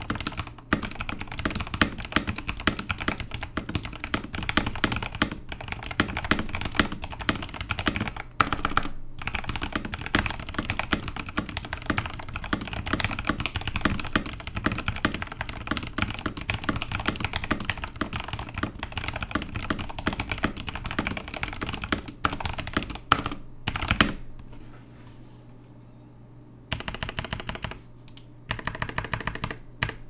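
Stock Epomaker TH66 mechanical keyboard with Gateron Pro Brown tactile switches being typed on fast and steadily. The typing stops about four-fifths of the way through. After a short pause, two brief bursts of keystrokes come near the end.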